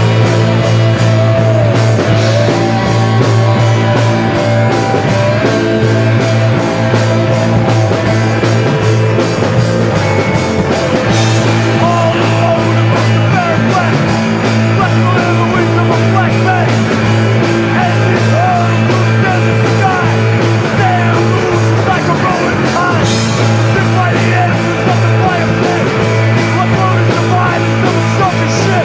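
Rock band playing: electric guitars, bass and a steady drumbeat, with a man singing.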